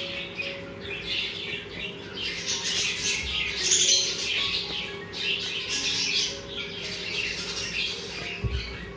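Small birds chirping and twittering in quick repeated clusters, over a steady low hum.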